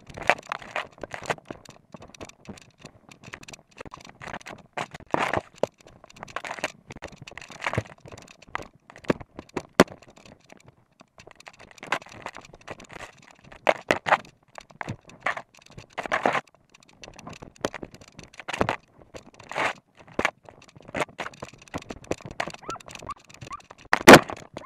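Norwegian elkhound moving through forest undergrowth, heard from a camera strapped to its body: irregular crackling, scraping and rustling of brush and twigs against the dog and the mount, with footfalls. A louder clatter comes near the end.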